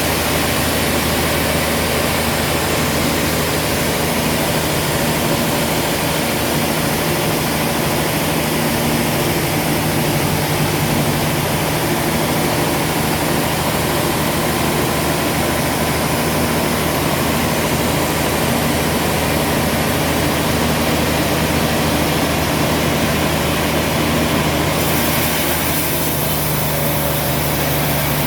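Sawmill machinery running with a steady, loud engine hum.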